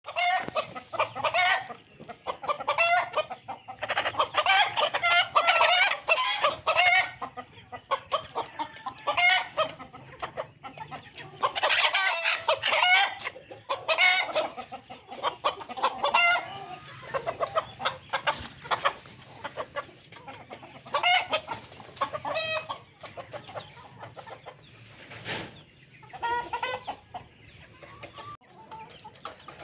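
A flock of domestic chickens, hens and roosters, clucking and cackling in many overlapping calls, in loud runs with short lulls between, thinning out near the end.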